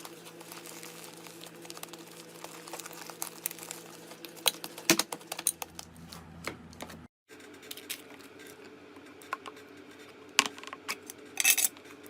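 Slime being squeezed and poked, making a run of sticky clicks and crackling pops over a low steady hum. The pops come thickest around the middle and again near the end, and the sound cuts out for a moment a little past halfway.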